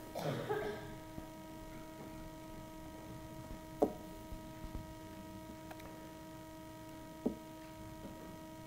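Steady electrical hum from the sound system, made of several constant tones. Two short knocks sound over it, about four seconds in and again about seven seconds in.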